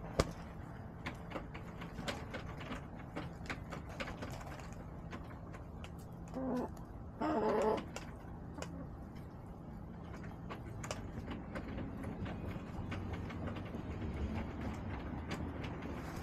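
Backyard hens: scattered light ticks and taps, with a short pitched hen call about six seconds in and a louder, longer one just after it.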